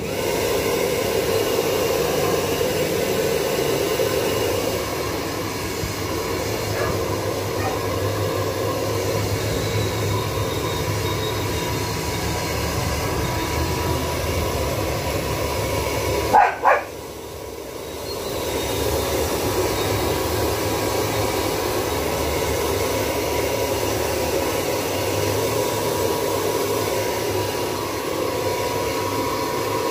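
Handheld hair dryer blowing steadily on a freshly bathed Shih Tzu puppy. About sixteen seconds in come two short, high yelps, the loudest sound, and the dryer noise drops for a moment before picking up again.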